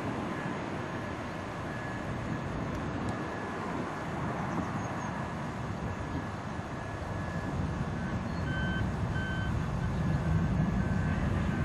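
Boeing 757-200's Pratt & Whitney PW2040 turbofans heard from behind as it climbs out after takeoff: a steady jet rumble that grows a little louder in the last few seconds. Faint intermittent electronic beeping, like a vehicle's reversing alarm, sounds through it, strongest about two-thirds of the way in.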